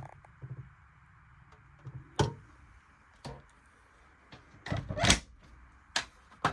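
A few separate sharp knocks and clunks of things being handled, spread over several seconds, the loudest about two-thirds of the way through, over a faint steady hiss.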